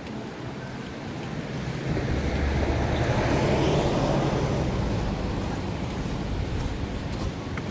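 A road vehicle passing close by, its engine rumble and road noise swelling to a peak about three to four seconds in and then fading.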